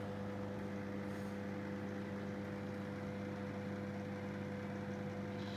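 Samsung grill microwave oven running a heating cycle: a steady, even hum that cuts off at the end.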